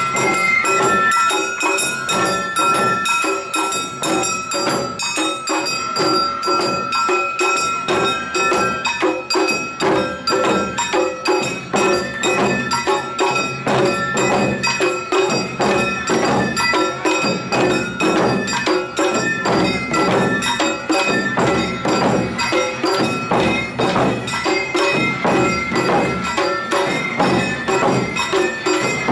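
Awa odori festival band playing: shamisen, shinobue bamboo flute and taiko drums in a brisk, steady beat. The flute holds a high note over the first several seconds.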